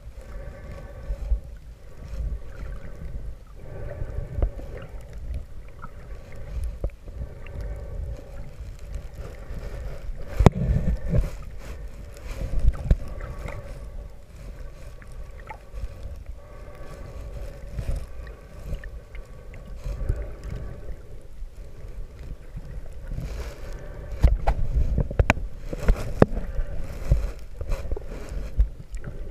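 Underwater sound from a camera held below the surface while snorkeling: a muffled low rumble of moving water with many scattered clicks and knocks and a faint steady hum of several tones. It swells louder about ten seconds in and again for a few seconds near the end.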